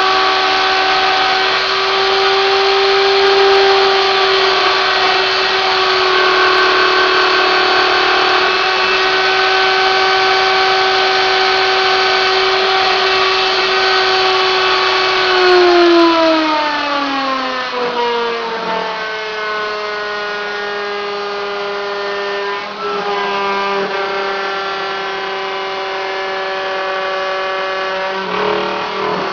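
CNC router spindle whining steadily while a 3 mm two-flute end mill cuts steel, with a rough cutting hiss under the whine. About halfway through, the whine slides down over a few seconds to roughly half its pitch and holds there.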